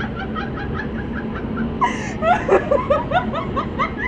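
Giggling laughter in quick runs of short, high syllables, louder about halfway through, over the steady rush and hum of a hurricane-simulator booth's blower.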